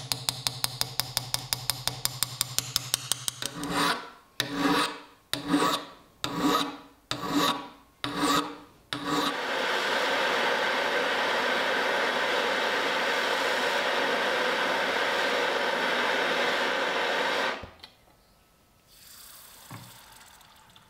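A small rotary tool runs with a steady hum and about five ticks a second against the axe's steel blade. Six slow file strokes follow along the edge. A gas torch then hisses steadily for about eight seconds while heating the blade, and near the end the hot steel goes into engine oil with a faint sizzle, an oil quench to harden it.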